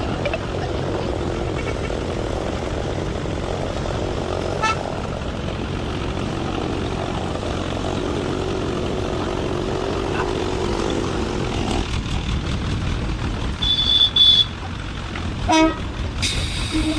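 Steady engine and road-traffic rumble, with short vehicle-horn toots about 14 and 15.5 seconds in.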